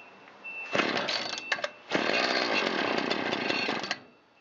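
Shindaiwa T272X string trimmer's two-stroke engine being pull-started on full choke at full throttle. It catches and runs for about two seconds, then cuts out abruptly near the end, the usual cue to go to half choke.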